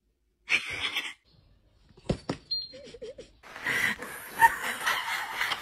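A dog making short vocal sounds, including a brief wavering whine about three seconds in.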